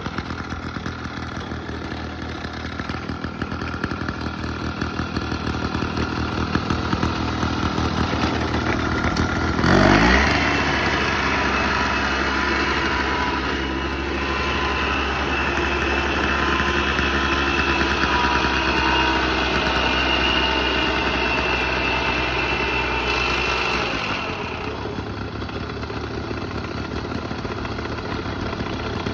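Engine of a Honda UM-T12 self-propelled mower idling, then revved up sharply about ten seconds in and held at high speed before dropping back to idle near the end.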